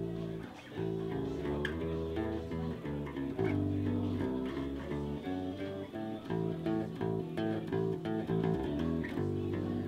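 Four-string electric bass played fingerstyle through an amp: a quick, continuous line of plucked notes.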